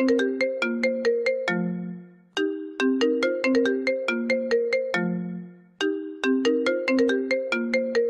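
iPhone ringtone melody playing on a loop: a quick run of short, bright notes ends on a low held note that fades out, and the phrase starts over about two and a half seconds in and again near six seconds.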